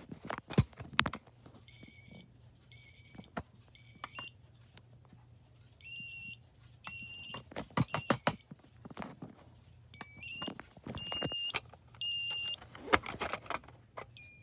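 First Alert 9120B smoke alarm, a water-damaged unit running on a 9-volt battery, sounding its temporal-three alarm: three short high beeps, a pause, then the next set of three, repeating. Sharp clicks and knocks from handling the unit are louder than the beeps.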